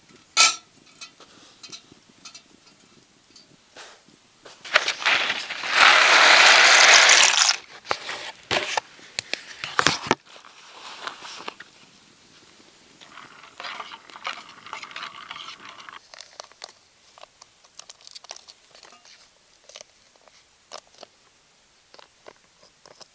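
Camp cooking noises over a campfire: a loud crinkling, rustling burst lasting about two and a half seconds, starting about five seconds in, then softer crinkles, scrapes and scattered sharp clicks from the fire crackling under a metal pot.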